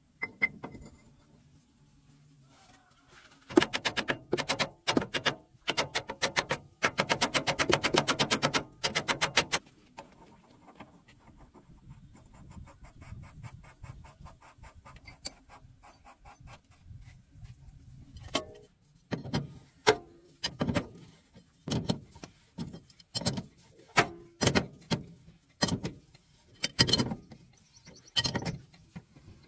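Hand tools on a truck's underside: a fast run of sharp wrench clicking a few seconds in, then separate clicks and knocks about once a second through the second half as a wrench is worked on a bolt.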